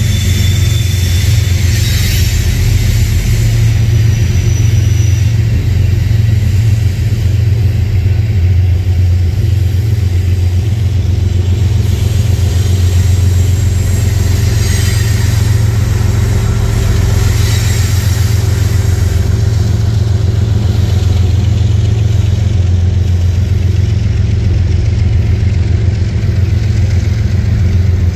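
Diesel locomotive engine running with a loud, steady low drone as a double-stack intermodal train rolls past.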